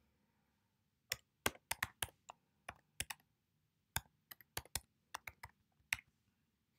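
Typing on a computer keyboard: a quick, irregular run of about twenty key clicks, starting about a second in and stopping about six seconds in.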